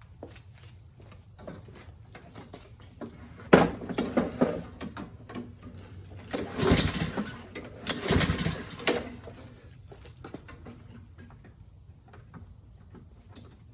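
Hand tools and metal mower parts being handled: scattered clicks and clinks, a sharp knock about three and a half seconds in, and two louder bouts of rattling around seven and eight seconds in.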